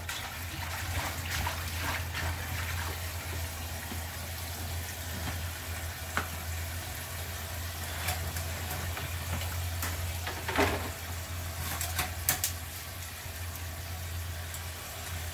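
Water running in a kitchen, with a steady low hum underneath and a few light knocks about two-thirds and four-fifths of the way through.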